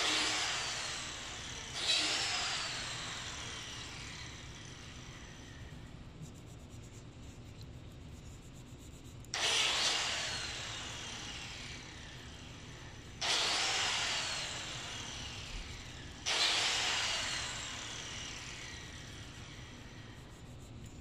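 A small power tool started five times in short bursts, its whine falling in pitch and fading over a few seconds each time as it spins down.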